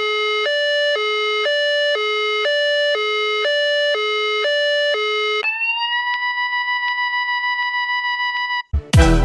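Emergency Alert System-style electronic alarm: two notes alternating low-high, each held about half a second, then a single steady higher tone for about three seconds. Loud electronic music with heavy bass breaks in near the end.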